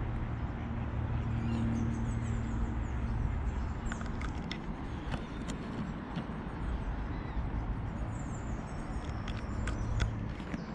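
Lakeside outdoor ambience: a steady low rumble with small birds chirping faintly above it. A few short sharp clicks come about four seconds in and again near the end.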